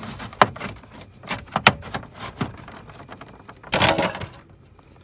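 Sharp clicks and knocks of a flathead screwdriver prying at a plastic clip in a car's interior trim. A short scraping rattle of plastic comes a little under four seconds in.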